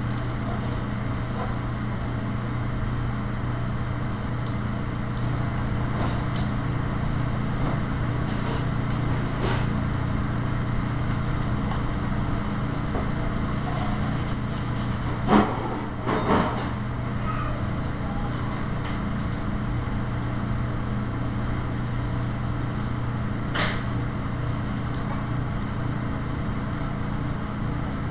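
Steady drone of a commercial kitchen's range-hood exhaust fan running over lit gas burners, with a low hum throughout. Two knocks come a little past halfway, and a single click later.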